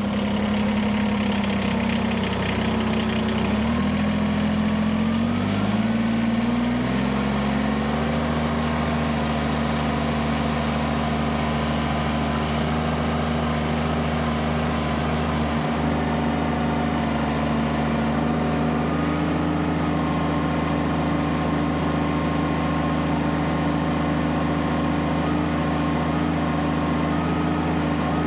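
Kubota BX compact tractor's three-cylinder diesel engine running, throttled up in steps over the first several seconds and then held steady at high revs, the high RPM used for a hydraulic lift test.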